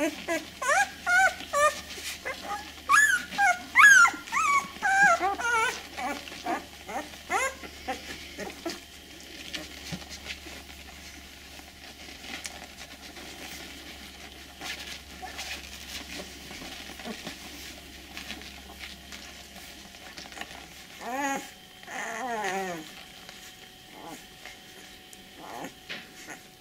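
Eight-day-old Australian Shepherd puppies squeaking and whimpering in a rapid string of short, high calls for the first six seconds or so as they root for their mother's teats, then mostly quiet apart from a couple of falling squeals a little past twenty seconds.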